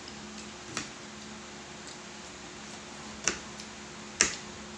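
Metal fork clinking against a plate three times, the last the loudest, over a steady low hum.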